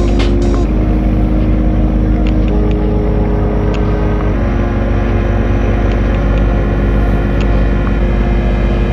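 Background electronic music: sustained synth chords changing about every two seconds over a steady beat and a heavy bass.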